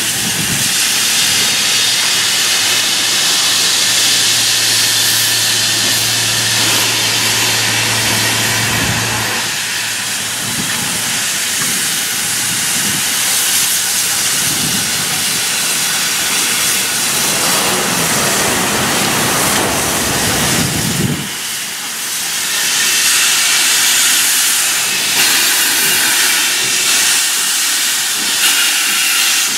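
SNCF 140 C 38, a 2-8-0 steam locomotive, drifting in slowly with steam blowing from low at its front end around the cylinders, making a steady loud hiss that grows stronger over the last few seconds as it draws close.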